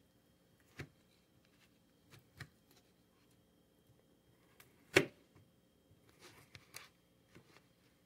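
Knife cutting through a soft microwave-cooked potato in a microwave-safe bowl, with a few sharp knocks of the blade against the bowl, the loudest about five seconds in.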